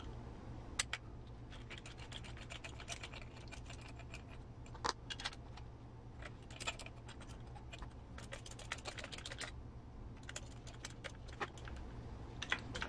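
Faint, scattered light clicks and ticks of a small hand driver working a screw and small parts into a plastic and metal RC crawler chassis, over a steady low hum.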